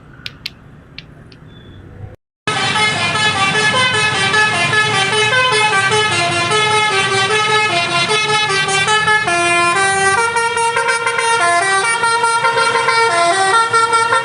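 A few light clicks, then after a brief cut about two seconds in, a tour bus's basuri melody horn plays a quick tune of stepping notes, loud and unbroken.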